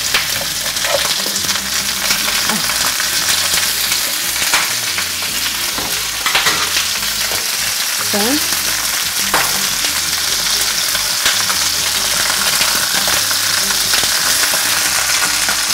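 Lamb shank pieces sizzling steadily in hot oil in a frying pan as they are seared brown on all sides, with a few light clicks.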